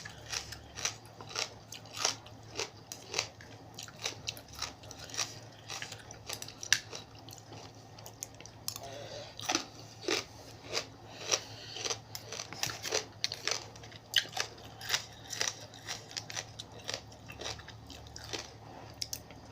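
Close-up chewing and crunching of a person eating spicy seafood papaya salad with crab, a sharp crunch every second or so with wet mouth sounds between.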